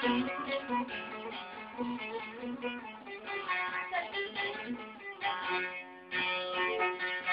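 Instrumental interlude of a Turkish folk song, a plucked stringed instrument playing a running melody, with a brief dip about six seconds in.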